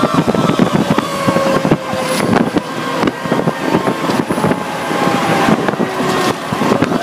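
Cab noise of a Pierce Arrow XT aerial ladder truck on the move: engine and road noise with constant rattling and clattering of the cab, and a faint whining tone that slowly drops in pitch.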